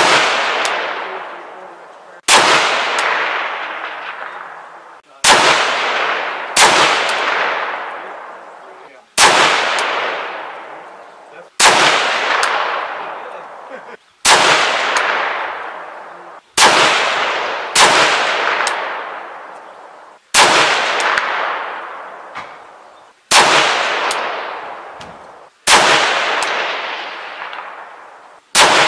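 A string of rifle shots from a 6.5 Grendel AR-style rifle fitted with a muzzle brake, about fourteen in all, fired one to three seconds apart. Each sharp crack is followed by a long echo that fades over a couple of seconds.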